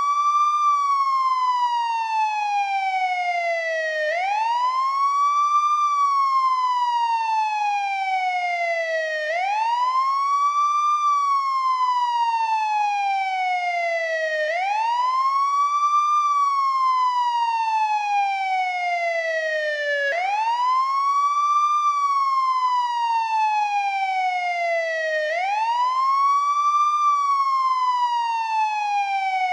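American police siren on its wail tone: the pitch sweeps up quickly, slides slowly back down, and repeats about every five seconds.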